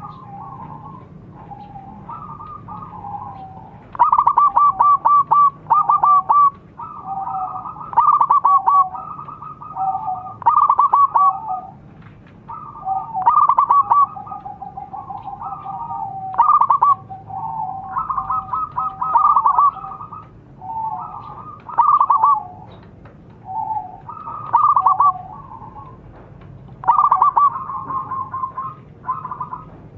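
Zebra dove singing vigorously: its rapid, rippling cooing phrases, each about a second long, repeated over and over with short gaps, louder from a few seconds in.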